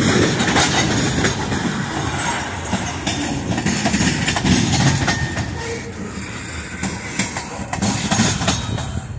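Freight train of tank cars rolling past: a steady rumble of steel wheels on rail with a clickety-clack of knocks as the wheels cross rail joints, growing quieter toward the end.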